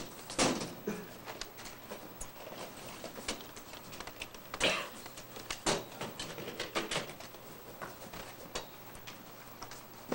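Irregular knocks, taps and clatter of stage props and the backdrop frame being handled and moved, with soft shuffling between the louder knocks.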